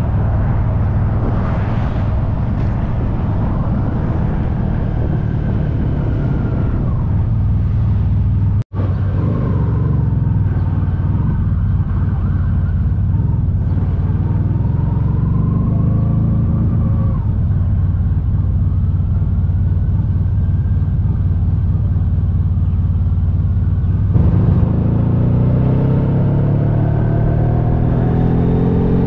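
Honda VFR1200X V4 engine running on the move, over a steady low rumble of wind and road noise, its pitch rising and falling with speed. The sound cuts out for an instant about a third of the way in, and near the end the engine pulls harder with a climbing pitch as the bike accelerates.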